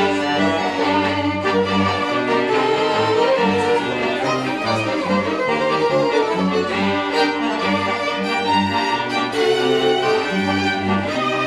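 Highland folk string band playing live: two fiddles carry the tune over accordion chords and a bowed cello-type bass that steps through notes in an even rhythm.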